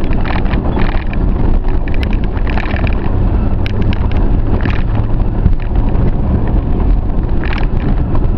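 A 4x4 vehicle crawling up a rocky off-road trail in low range: engine rumbling steadily under load, with scattered knocks and rattles from the body and rocks.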